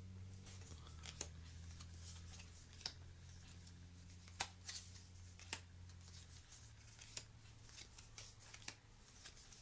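Faint, scattered clicks and soft snaps of game cards being counted out and laid one at a time onto a pile on a wooden table, over a low steady hum.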